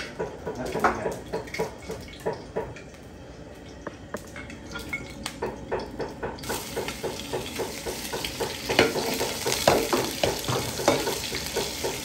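Stir-frying in a wok: stirring strokes clink and scrape against the pan again and again. About six seconds in, a steady sizzle starts and runs under the continued stirring.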